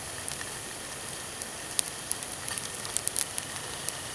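Food, onions among it, sizzling in a pot over a campfire: a steady hiss with sharp pops and crackles, thickest about two to three seconds in.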